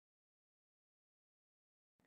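Silence: the audio track is digitally silent.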